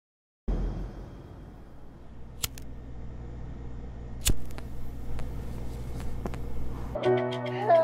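Plastic lighter clicked twice, a sharp click each time about two seconds apart, followed by a few fainter ticks, over a low steady hum. Soft music comes in near the end.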